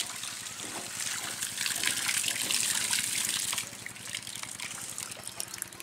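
Water gushing from a pump's outlet pipe into a concrete tank, loudest for a couple of seconds in the middle. Under it, the old Petter diesel engine driving the pump runs with a steady beat.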